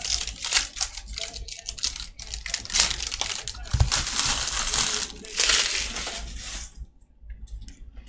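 Foil wrappers of Panini Court Kings basketball card packs being torn open and crumpled by hand, with a dull knock a little under four seconds in. The handling dies down near the end.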